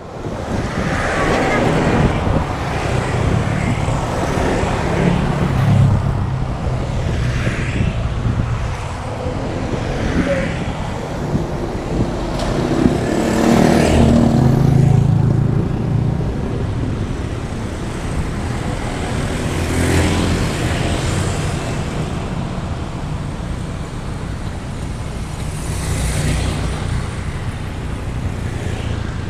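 Road traffic: motorcycles and cars passing one after another in a continuous stream, with several louder pass-bys swelling up and fading away.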